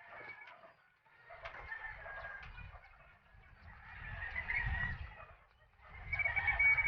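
Chickens clucking and calling in three swells, each about a second or so long, over a low rumble.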